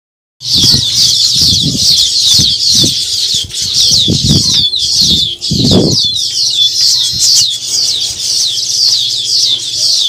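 A colony of baya weavers chattering at their hanging nests: a dense, continuous chorus of high, short falling chirps that starts about half a second in. Irregular low rumbles come and go under it through the first six seconds.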